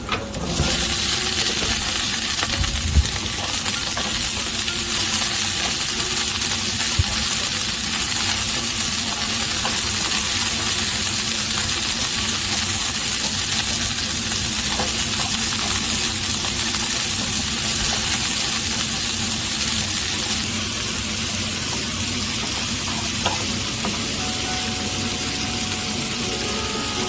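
Food frying in hot oil in a pan, with a steady loud sizzle that jumps up sharply about half a second in. A few sharp taps, like a spatula against the pan, come during the stir-fry.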